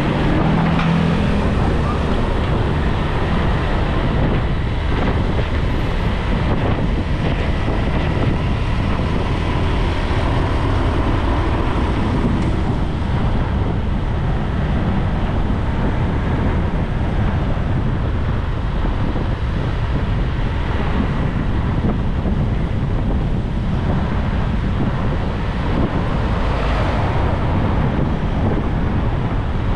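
Steady wind noise buffeting the microphone of a moving rider, mixed with the rush of road and traffic noise from nearby motorbikes and cars.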